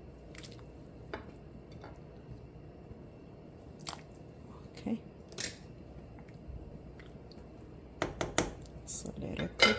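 Raw pork shoulder pieces dropped by hand into a stainless steel pot of hot water, a few scattered soft wet plops. Near the end a spoon stirs the pot, with a quick run of louder clicks and knocks against the metal.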